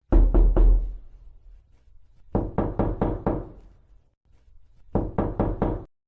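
Knocking on a door in three rounds of quick, evenly spaced knocks: about three, then about five, then about four, with short pauses between the rounds.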